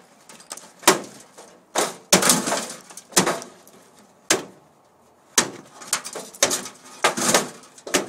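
Irregular knocks and clatters from microwave ovens being pulled apart for scrap, about ten in all with a short lull midway.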